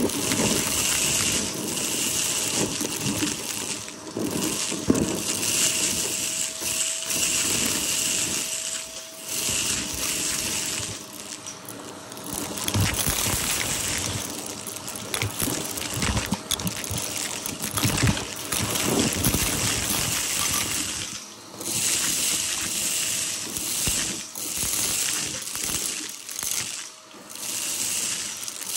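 Vacuum cleaner running, its rush of air swelling and fading every couple of seconds as it is pushed back and forth, with many small clicks and rattles of debris being sucked up.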